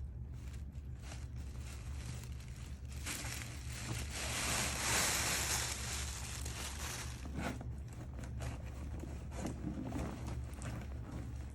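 Wrapping paper rustling and crinkling as a present is handled, swelling into a louder hissing rustle around the middle, over a steady low hum.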